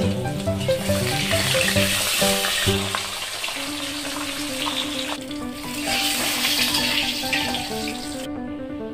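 Fish steaks sizzling as they fry in hot oil in a steel wok, with background music of held notes over it. The sizzle cuts off abruptly shortly before the end.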